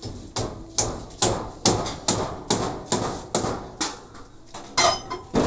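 Hammering during roof work: about nine sharp, evenly spaced blows at a little over two a second, then a short pause and two more near the end.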